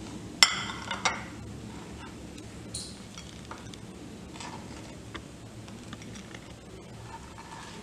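A plate set down on a stone countertop with a ringing clatter about half a second in and a second knock about a second in, then faint soft taps as grilled sandwich pieces are placed on it.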